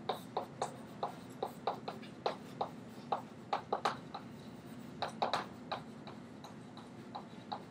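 Chalk tapping and scratching on a blackboard while writing: a quick, irregular run of short clicks, about three or four a second.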